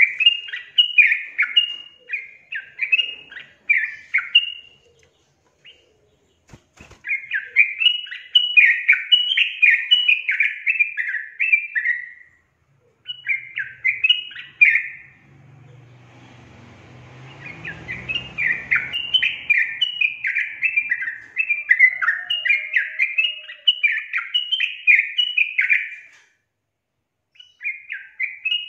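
Yellow-vented bulbul singing: fast runs of bright chirped notes in phrases a few seconds long, with short pauses between them. About halfway through, a low rumble with a hiss rises under the song and fades out a few seconds later.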